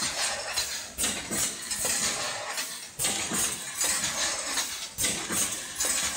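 Automatic square tin-can production line clanking about once a second as it indexes the cans along, with metallic rattling between the strokes.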